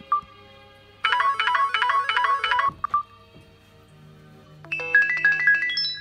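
Samsung GT-S5610 mobile phone playing short electronic ringtone melodies. First comes a fast repeating tune for about a second and a half, then one short note. After a pause, near the end, a rising run of bright notes follows with echoing tails.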